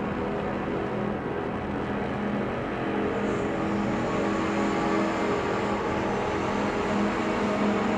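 Slow, low ambient music drone: a tape played at half speed through a Mutable Instruments Clouds granular processor, giving a steady wash of held low notes over hiss.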